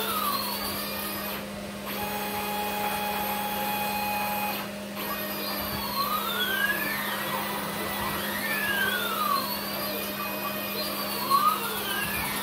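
Stepper motors of a CNC gantry machine driving its axes along ball screws: motor whines that sweep up and down in pitch as the axes speed up and slow down, some holding a steady pitch for a couple of seconds, over a constant low hum.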